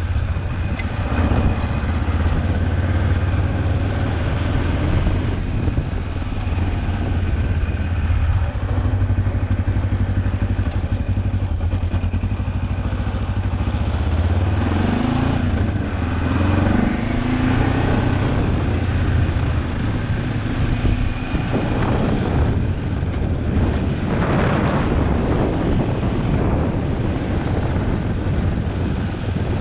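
Kawasaki KLE 400's parallel-twin engine running while the motorcycle is ridden, with the revs dropping and climbing again about halfway through. Bursts of rushing noise come and go in the second half.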